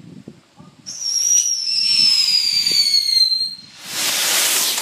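Whistling firework on a modified fireworks car going off: about a second in, a loud shrill whistle starts and falls slowly in pitch for over two seconds, followed by a loud hiss near the end.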